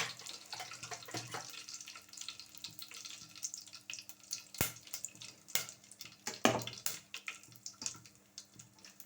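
Whole spices sizzling and crackling in hot mustard oil in a pan, with two sharp knocks, the louder about six and a half seconds in.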